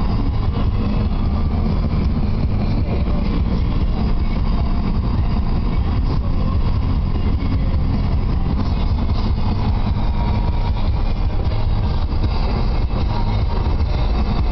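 Car driving at speed: a steady, low rumble of road and engine noise.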